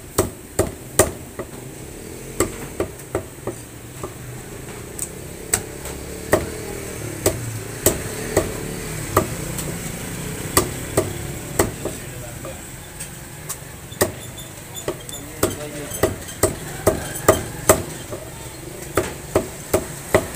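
Meat cleaver chopping chicken on a wooden log chopping block: sharp strikes at an uneven pace, coming in quicker runs toward the end.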